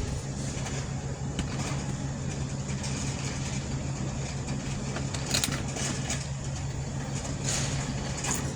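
Steady low hum of an idling car engine, with light rustling and clicks from handling a few seconds in.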